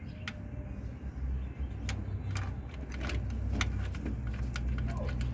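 Scattered sharp metallic clicks and clinks of a socket wrench and extension working on the starter's mounting bolts, over a steady low hum.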